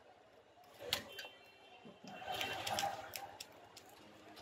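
A few light knocks and clicks of a large knife blade against a wooden chopping block as fish is cut, irregularly spaced, with a small cluster near the end.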